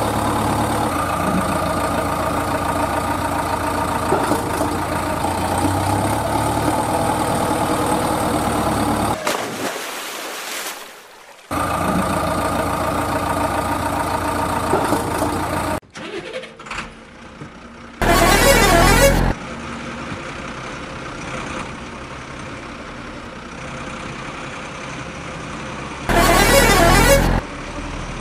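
Sound effects of a vehicle engine running steadily, dropping away twice, followed by two loud vehicle horn blasts about eight seconds apart, each just over a second long.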